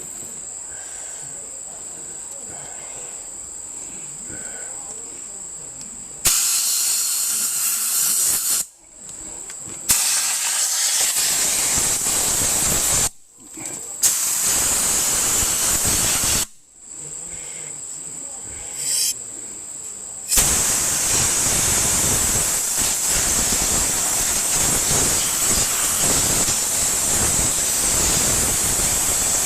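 Compressed air from an air hose blasting into the open cylinders of a Farmall tractor engine block with its head off, blowing out dirt and debris. It comes in three hisses of a few seconds each starting about six seconds in, a short puff, then one long continuous blast from about twenty seconds in. Crickets chirp steadily before the air starts.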